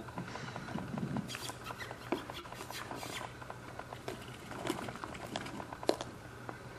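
Young puppies scuffling and pawing through dry grass and weeds: a steady run of scattered rustles and small ticks, with one sharper tick about six seconds in.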